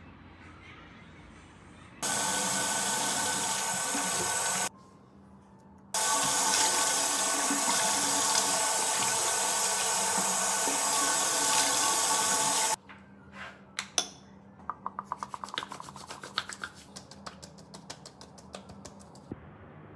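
Lever mixer tap running into a ceramic bathroom basin in two spells, about three seconds and then about seven, with a short stop between. After it shuts off, wet hands rubbed together make a quick run of small squelching clicks.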